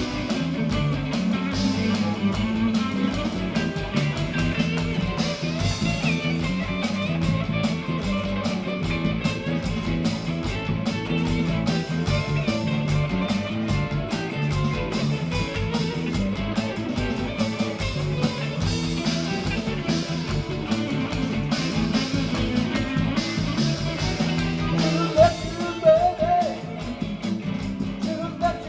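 Blues-rock band playing an instrumental break, led by guitar over a moving bass line and drums. The playing gets sharper and more accented near the end.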